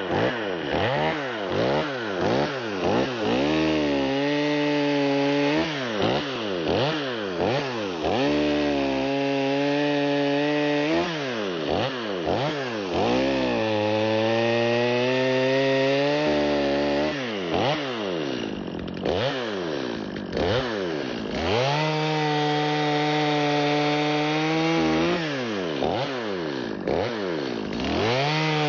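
Stihl MS 250 two-stroke chainsaw sawing up a fallen poplar log. It revs in quick blips, about two a second, for the first few seconds, then alternates long stretches held at full throttle in the cut with short bursts of blipping. About two-thirds of the way through the revs drop and waver, then it climbs back to full throttle.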